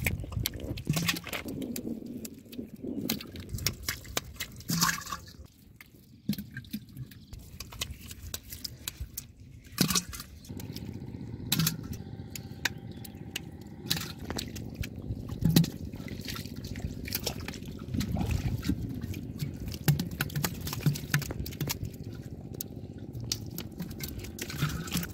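Catfish thrashing in shallow water: irregular splashes and wet slaps, with water trickling and sloshing in between.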